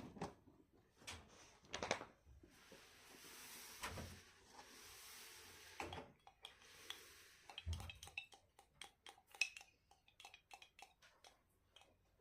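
Cutlery and dishes clinking and knocking, with a few seconds of soft hiss in the middle, then a quick run of small clicks near the end.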